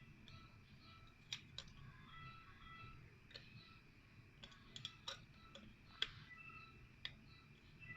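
Near silence with faint, irregular light clicks and taps, about a dozen spread over several seconds.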